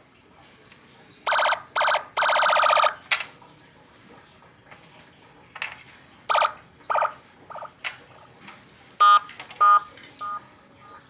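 12-tone electronic siren module through a 20-watt speaker, giving short bursts of different siren and alarm tones in three groups with pauses between them, mixed with a few sharp clicks.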